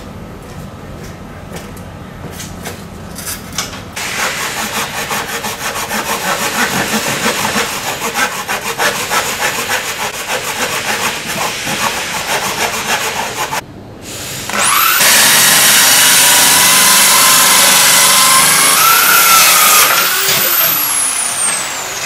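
A hand saw cutting a thin wooden board with quick, even back-and-forth strokes for about ten seconds. Then a corded power drill with a hole saw spins up and cuts through the board, a loud steady whine that winds down near the end.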